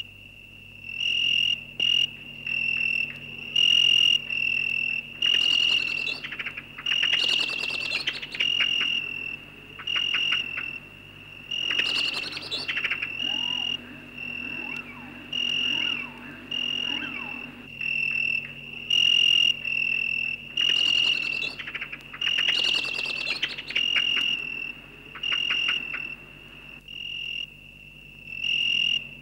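A cricket chirping, short high-pitched chirps repeating about once a second. Several bursts of crackling, rustling noise come in between.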